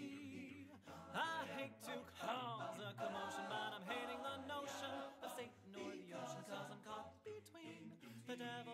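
A cappella vocal music: several voices singing without words, in harmony over a sung bass line, with sliding pitches.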